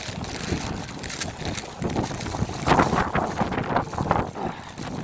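Wind buffeting the microphone in a snowstorm, an irregular rumbling noise that swells in gusts, strongest about three seconds in.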